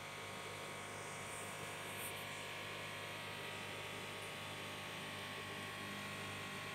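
Steady electric buzz and hum of running aquarium equipment, even and unchanging throughout.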